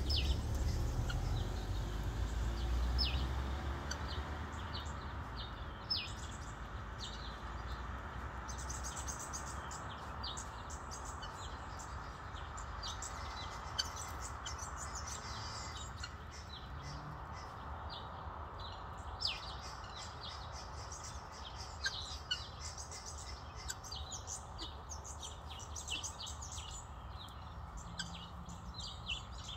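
Guinea fowl keets peeping: many short, high chirps scattered throughout. There is a low rumble in the first few seconds.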